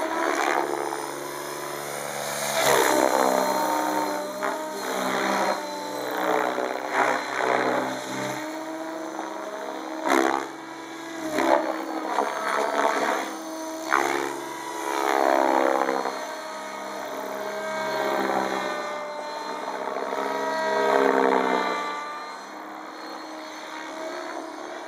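Compass 7HV electric RC helicopter in flight, its rotor and drive whine gliding up and down in pitch and swelling and fading in loudness as it manoeuvres.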